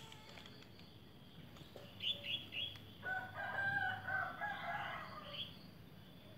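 Three short high chirps about two seconds in, then a drawn-out animal call lasting about two and a half seconds, broken into several parts.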